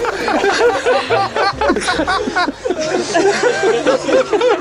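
Comic snickering laughter: a quick run of short, high cackles that rise and fall.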